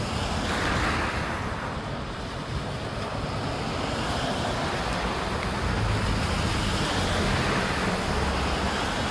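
Steady rushing noise of a wet night-street ambience, like tyres hissing on wet road, with a brief swell about a second in.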